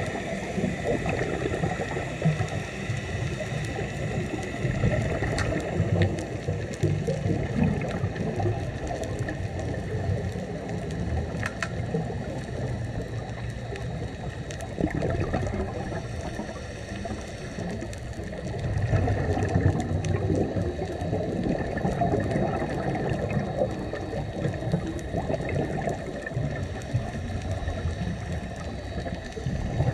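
Underwater scuba breathing: a diver's regulator exhaust bubbles gurgling and rumbling in surges every several seconds, with scattered faint clicks.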